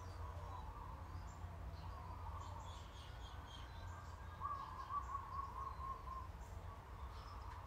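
Garden birds chirping and calling, with a louder warbling, bubbling call from about halfway in to near the end, over a steady low hum. Faint short scrapes of a hand file being worked along a wooden knife handle.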